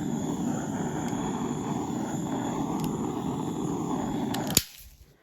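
Steady rushing noise from a handheld tool run over wet acrylic paint to pop air bubbles, switched off with a click about four and a half seconds in.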